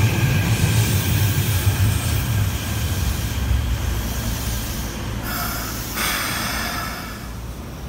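Keikyu 1500 series electric train with a Mitsubishi IGBT VVVF inverter braking to a stop: the rumble of the wheels and the inverter's falling whine fade as it slows. A short squeal and hiss comes about five seconds in, as it stops.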